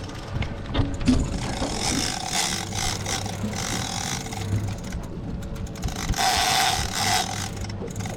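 Big-game fishing reel's ratchet clicker buzzing as line is pulled off it in spurts, loudest about two seconds in and again about six seconds in, over the steady low hum of the boat's outboard engine.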